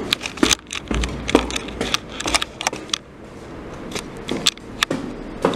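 Irregular sharp clicks and knocks, several a second, with a brief low rumble about a second in.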